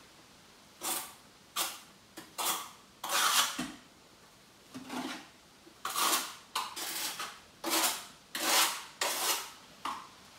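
Scraping and rubbing strokes from tiling tools being handled low down, about a dozen short ones at uneven intervals.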